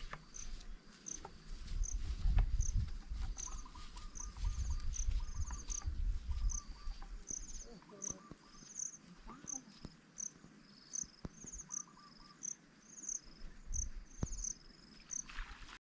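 Insect chirping: short, high chirps repeating about twice a second, with a low rumble through the first half.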